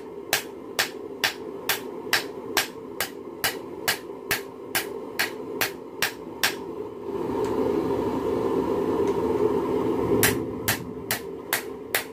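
Hand hammer striking a glowing-hot railroad spike on a steel anvil, forging it into a knife: a steady rhythm of sharp metallic blows, about two a second. The blows stop for a few seconds past the middle, leaving a steady low rushing sound, then start again near the end.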